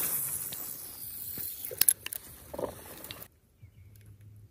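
Spinning reel being handled and cranked: a mechanical ratcheting whir with a few sharp clicks near the middle, cutting off suddenly about three seconds in.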